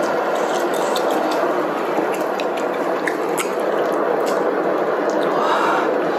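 Hotpot broth boiling steadily in an electric hot pot, an even bubbling hiss, with scattered light clicks of chopsticks against the pot and dish.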